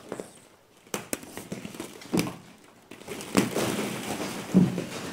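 Hollow plastic ball-pit balls clattering and rustling as a white-faced capuchin monkey scrambles through them. Sharp knocks come from single balls striking, about a second in, at two seconds, and again at about three and a half seconds, after which the clatter gets busier.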